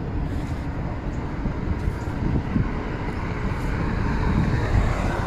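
Steady outdoor background rumble of engine and traffic-like noise, with no single event standing out.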